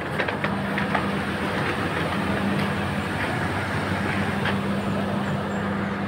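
A motor vehicle's engine running at a steady pace, a constant low hum over an even mechanical rumble, with a few faint ticks.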